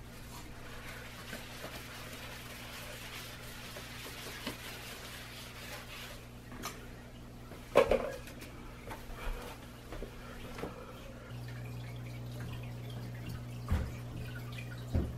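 Steady room hum with faint scrubbing of a hand and paper towel over a tiled floor, then a sharp knock about eight seconds in and a couple of soft thumps near the end.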